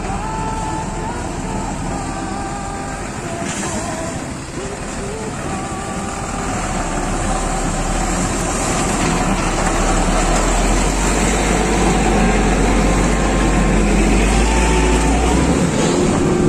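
Diesel truck engine running as the truck creeps past through water-filled potholes. The low rumble grows louder as it comes alongside and drops away suddenly near the end.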